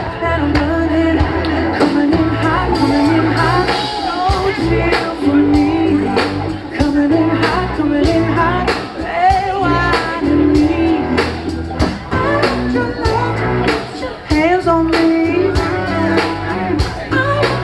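Live rock band rehearsing a song, with a steady drum beat under a male lead vocal singing the melody.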